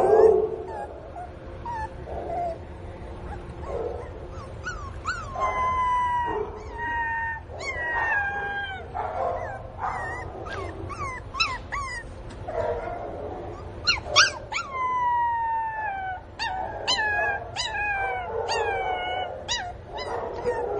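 Pinscher puppy crying for its absent mother: a long series of high whimpering yelps and howls, most sliding downward in pitch, coming in two dense bouts after a quieter start.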